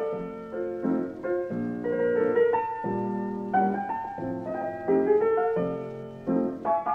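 Solo piano playing a slow tune, chords struck roughly once a second over a low bass line.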